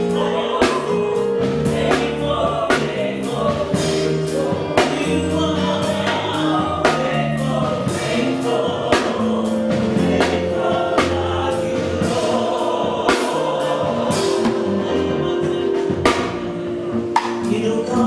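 Live gospel worship music: a choir singing over a band with a steady drum-kit beat.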